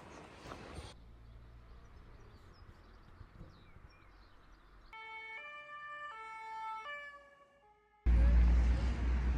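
Quiet street sounds, then for about three seconds an emergency-vehicle siren whose tones step up and down between pitches. Near the end a sudden, much louder low rumble of wind on the microphone takes over.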